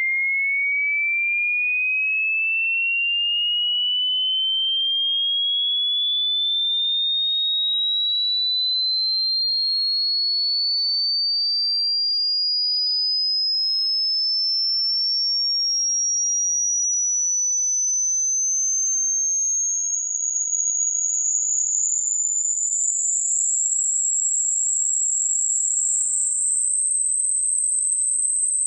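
Pure sine test tone of a hearing test, sweeping slowly upward in pitch from a high whistle to a very high, thin whine, climbing in small steps over the last third. The point where a listener can no longer hear the tone is taken as their hearing age.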